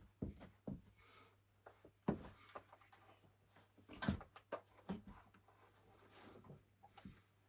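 Scattered knocks and clinks of metal engine parts and tools being handled during mower engine work, with a sharper knock about four seconds in.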